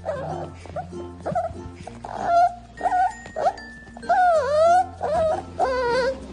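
A dog giving a run of short vocal calls that slide up and down in pitch, the longest about four seconds in, over background music.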